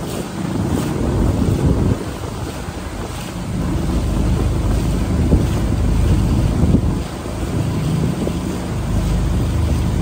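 Wind buffeting the microphone at the bow of a small motorized river boat under way, over the rush of water along the hull and a low engine rumble.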